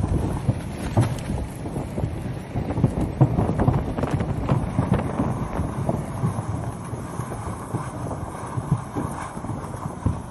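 Erupting volcanic cone with lava fountaining in its crater: a steady low rumble broken by irregular thuds and crackling pops from the spattering lava.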